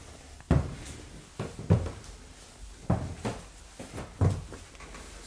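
Footsteps on wooden stairs: a run of about seven heavy, irregularly spaced thuds.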